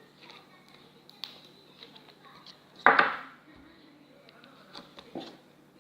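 Handling noises from slime and putty containers: faint scattered clicks and taps, with one loud, short clack about three seconds in and a softer one a little after five seconds.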